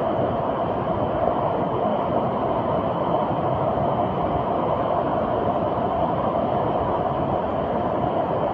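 Fast-flowing floodwater rushing, a steady, even noise with no breaks.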